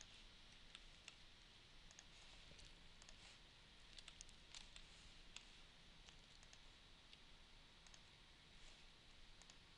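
Faint, irregular computer mouse clicks over near silence.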